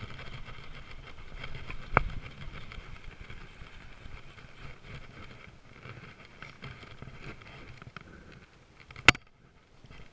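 Handling noise of a baitcasting rod and reel as a small largemouth bass is reeled in and grabbed by hand, with faint rattling throughout. A sharp knock sounds about two seconds in and a much louder one near the end.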